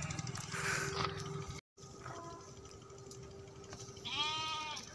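A single bleat from a grazing flock of sheep and goats near the end, one wavering call a little under a second long. A low steady engine hum runs in the first second and a half.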